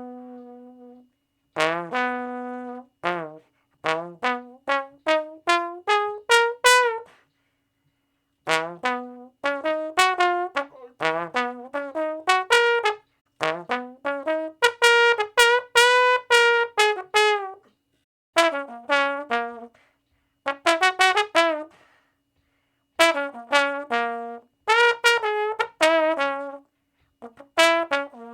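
A brass instrument playing short notes in quick, mostly rising runs. Phrases are broken by brief silences, and one longer note is held near the middle.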